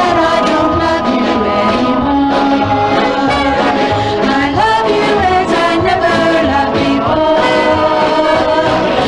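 Doo-wop vocal group singing long held notes in close harmony over a band with a steady beat.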